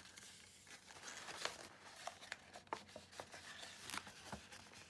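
Faint rustling and scattered light clicks of stiff cardstock being handled, folded and pressed together while a paper box is assembled.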